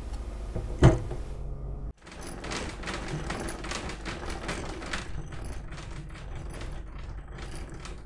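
A sharp knock about a second in, then the hand-cranked gearing of a three-frame manual tangential honey extractor spinning, with a quick, steady run of mechanical clicks as the cage turns.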